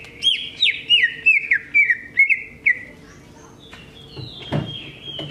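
Green leafbird (cucak ijo) singing a fast run of about nine sharp whistled notes, each dropping in pitch, over the first three seconds. A dull knock follows near the end.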